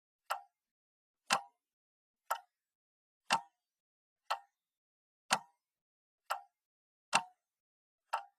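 Water drops from an air conditioner falling at a steady pace of about one a second, nine in all. Every other drop lands with a heavier plop and the ones between are lighter.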